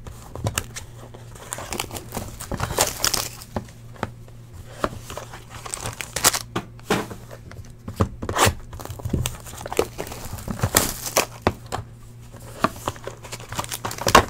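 Foil-wrapped trading card packs crinkling and a cardboard card box being torn open and handled, in irregular rustles and crackles, over a faint steady low hum.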